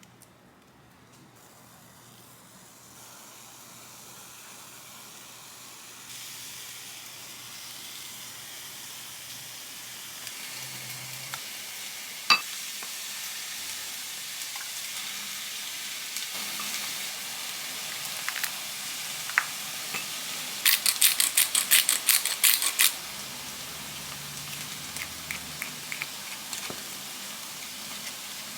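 Food sizzling in a hot frying pan, the sizzle building up over the first ten seconds or so and then holding steady. A sharp click sounds near the middle, and a quick run of clicks or taps comes a few seconds before the end, likely utensils against the pan.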